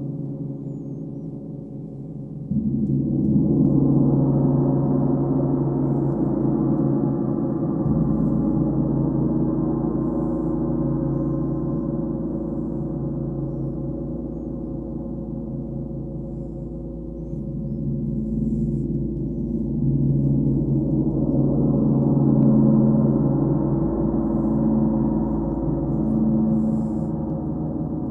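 Large hanging gongs played with soft mallets, giving a deep, sustained ringing drone. It swells up suddenly about two seconds in, eases off through the middle, and builds again to a second peak near the end, with a low tone pulsing in the last few seconds.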